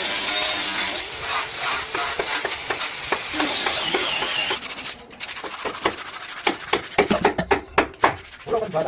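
Hand work on wood, rubbing and rasping strokes as in sanding or filing. A steady scraping hiss for the first four or five seconds, then a run of short, sharp strokes that come faster just before the end.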